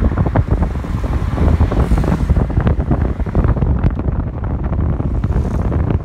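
Wind buffeting the microphone: a loud, gusty low rumble with many small crackles.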